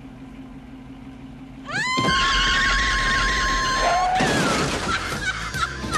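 A car's engine idling low, then its tyres screech as it accelerates hard, a loud held squeal, followed about four seconds in by a crash of metal and breaking glass as it rams the back of a red Volkswagen Beetle, with clattering debris after.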